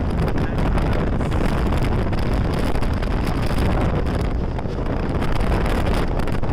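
Wind buffeting the microphone over the steady running rumble of a moving express passenger train, heard from the train itself.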